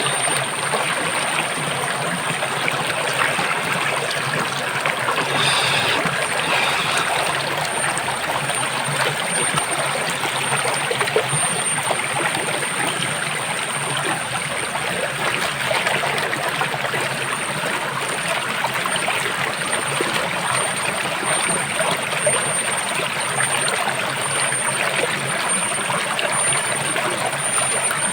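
Water running steadily, like a flowing stream, with a steady high-pitched tone above it.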